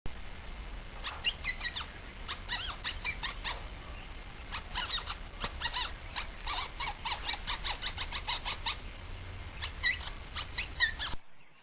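Birds chirping and singing, many quick, short notes in rapid runs over a low background rumble; the sound cuts off abruptly near the end.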